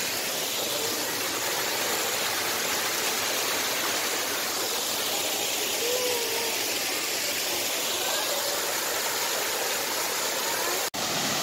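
A small waterfall and stream cascading over granite boulders into a pool: a steady rush of falling water. The sound drops out for an instant near the end.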